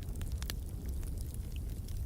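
Wood fire burning in a fireplace: a steady low rumble with scattered crackles and pops, the sharpest about a quarter of the way in.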